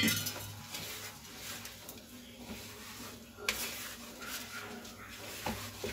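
Hands mixing and pressing maize flour dough with water in a steel plate, a soft irregular rubbing and squishing. A sharp clink of a steel bowl against metal comes at the start, and another knock about three and a half seconds in as the bowl is set down.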